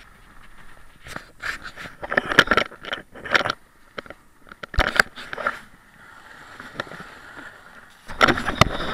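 Dog sled running over packed snow: the runners hiss and scrape along the trail. Bursts of rustling and knocking come close to the camera, and a steadier hiss runs in a lull about two thirds of the way through.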